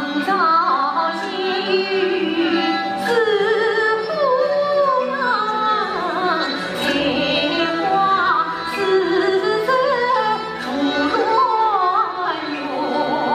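A female Yue opera singer sings an aria in a sliding, ornamented melody over a traditional Chinese ensemble led by bowed strings, with a few sharp percussion strikes marking the phrases.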